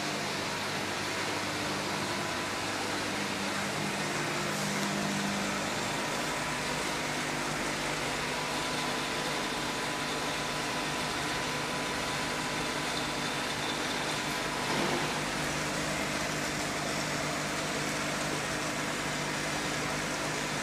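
Steady hum and hiss of running aquarium equipment, such as filter pumps and aeration.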